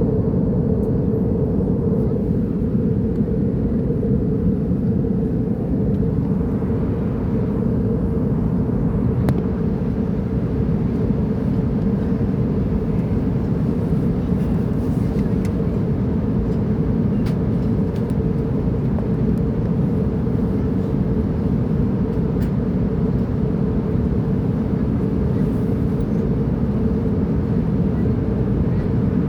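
Airplane in flight: a steady, unbroken low rumble that holds at one level throughout.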